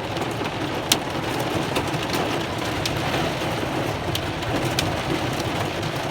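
Heavy rain pouring steadily, with scattered sharp taps of drops striking a hard surface and one louder tap about a second in.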